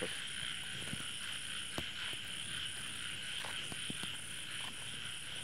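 Night chorus of crickets and frogs: a steady, high-pitched insect trill with an evenly pulsing higher tone above it, and a few faint clicks.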